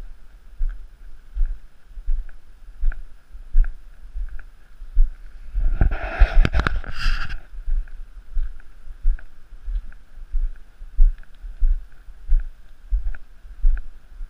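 Walking footsteps on a paved path, heard as dull thuds about every three-quarters of a second as the camera is carried along. About six seconds in there is a brief, louder burst of noise lasting a second or so.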